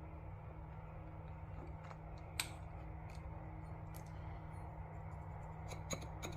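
Faint, scattered clicks of a hand tool working the water pump pulley bolts on a turbo Buick V6, over a steady low hum; the clicks grow more frequent near the end.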